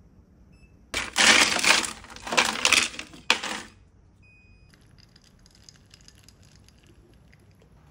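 Ice cubes clattering and rattling loudly for nearly three seconds as they are scooped in a freezer's plastic ice bin, then a short electronic beep. After that comes faint crackling and trickling as coffee is poured over the ice in a glass.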